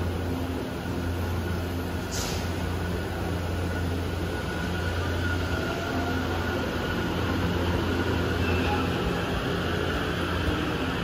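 JR East E257 series electric train moving at a station platform: a steady low hum under its running noise, with a brief rising whine near the end.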